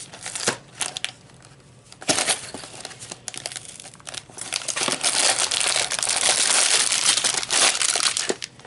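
Crinkling of Lego set packaging being opened and handled, with a few sharp clicks at first, then dense steady crinkling from about halfway through.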